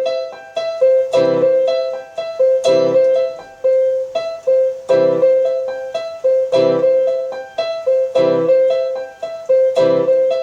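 Home electronic keyboard playing a piano sound: a short repeating figure of quick mid-high notes over a low chord struck about every one and a half to two seconds.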